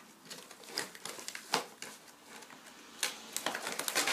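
Hands working a toy blaster free of its cardboard packaging tray: a scatter of light clicks, taps and rustles of cardboard and plastic, sharpest about a second and a half in and again near the end.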